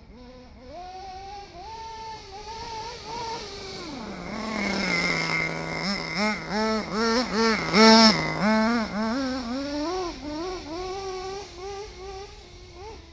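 Schumacher radio-controlled car's motor running with repeated bursts of throttle, its pitch swelling up and down every fraction of a second. It grows louder through the middle, loudest about eight seconds in, then fades.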